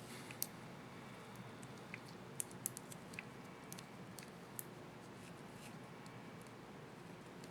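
Light, scattered clicks of small plastic laptop keyboard parts, a keycap and its retainer clip, being handled and fitted, about eight clicks over the first five seconds.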